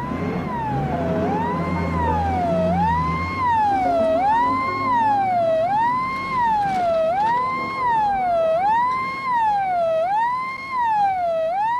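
Siren wailing, its pitch sweeping up and down steadily about once every 1.3 seconds. A low car-engine hum lies under it for the first three seconds or so.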